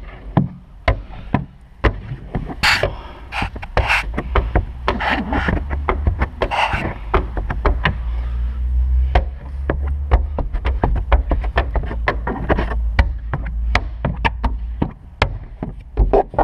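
Blue Max squeegee being swiped side to side over wet window-tint film on the inside of a car's rear glass: irregular knocks, clicks and scraping, over a low rumble.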